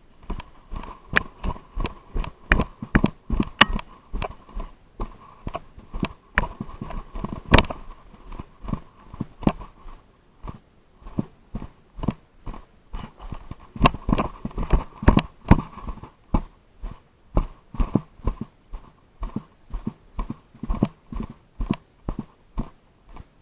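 Footsteps on the ground, roughly two a second, a string of short sharp knocks that pauses briefly a few times.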